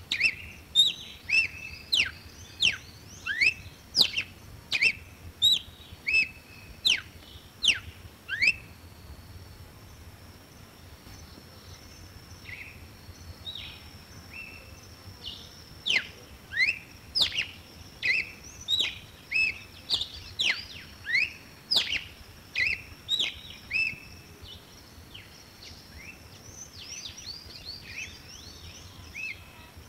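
Red-cowled cardinal singing: quick, sharply slurred whistled notes about two a second, in a first bout and then, after a quieter stretch of about six seconds, a second bout. A faint steady high-pitched tone runs underneath from the pause onward.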